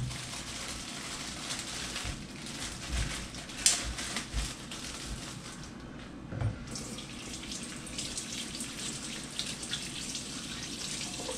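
Kitchen tap running into a stainless steel sink while potatoes are washed by hand under it, with a few light knocks about three, four and six and a half seconds in.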